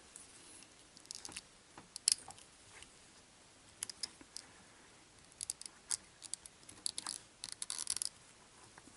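Small clicks and scrapes of test-lead clips and an oscilloscope probe hook being handled and clipped onto a resistor's leads: a sharp click about two seconds in and a flurry of small clicks in the second half.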